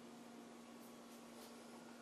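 Near silence: room tone with a faint steady hum and hiss.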